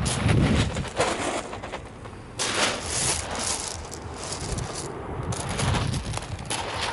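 Shingle-beach pebbles crunching and rattling in uneven surges, loudest about two and a half to three and a half seconds in, with a low rumble underneath near the start and again near the end.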